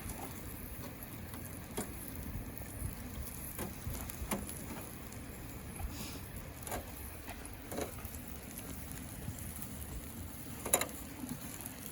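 Outdoor fire crackling: irregular sharp pops and clicks over a steady low rumble.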